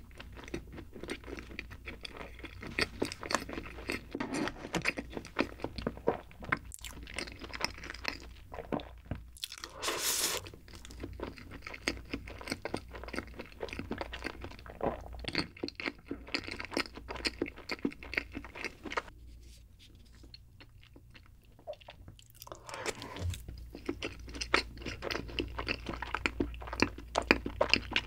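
Close-miked chewing and mouth sounds of someone eating soft bread, with many small wet clicks. There is a brief louder rustle about ten seconds in and a quieter pause a few seconds before the chewing picks up again.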